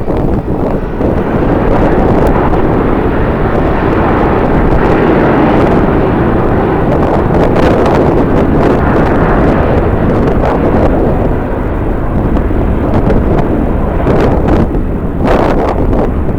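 Jet airliner engine noise swelling and fading as an aircraft passes, heard through heavy wind buffeting on the microphone.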